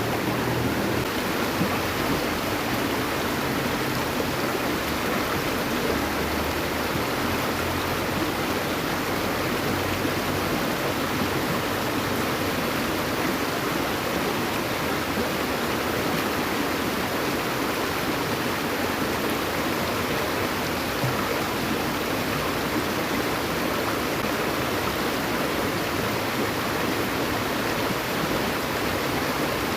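Steady rush of flowing stream water, an even unbroken wash of noise.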